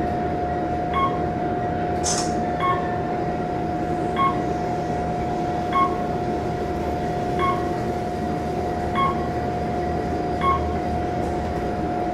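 1996 Otis Series 1 traction elevator car travelling up, with a steady tone and ride noise and a short beep about every one and a half seconds as it passes each floor. A brief hiss sounds about two seconds in.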